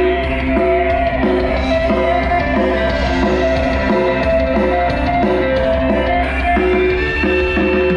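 A dangdut koplo song with singing played loudly through an upgraded home-built stereo amplifier and woofer cabinets, as a playback test of the amplifier at a quarter volume. It has a strong, steady bass.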